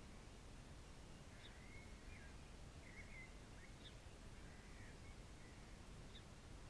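Faint birdsong: scattered short chirps and brief gliding whistles, about half a dozen in all, over a low steady background noise.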